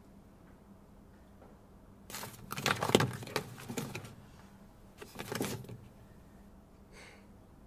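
A hardcover book being opened and its pages turned: two bursts of paper rustling and handling, about two seconds in and again about five seconds in, the first the louder.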